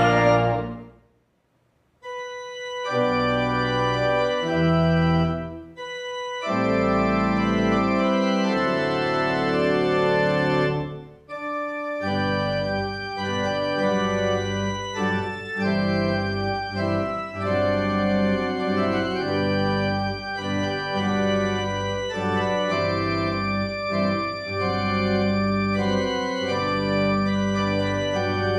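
Slow instrumental organ music of held, changing chords. It starts about two seconds in, after the previous music cuts off into a second of near silence, pauses briefly twice, then plays on without a break.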